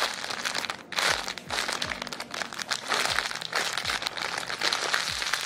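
Thin clear plastic packaging crinkling continuously as a cake-shaped foam squishy toy is handled and squeezed inside it.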